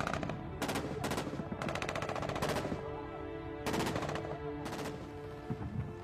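Several bursts of rapid automatic gunfire, over a film score holding sustained notes.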